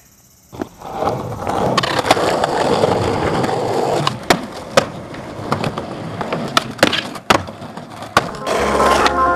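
Skateboard rolling on concrete, with sharp, irregular clacks and knocks of the board and trucks hitting and scraping along a concrete ledge as tricks are done.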